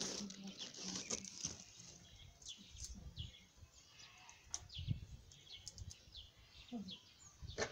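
Small birds chirping in the background, a run of short, quick falling notes, thickest a few seconds in, with a low bump of handling noise about five seconds in.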